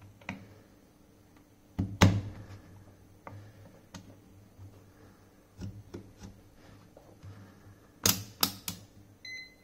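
Clicks and knocks from handling a DM-85T digital multimeter: a test-lead plug pushed into its jack, with a loud knock about two seconds in. Near the end, a quick run of clicks as the rotary selector dial is turned, then a short high beep from the meter as it switches on.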